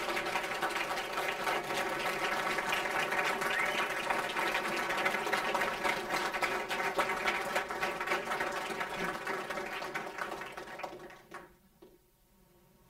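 Audience applauding, a dense patter of many hands clapping that fades out about eleven seconds in.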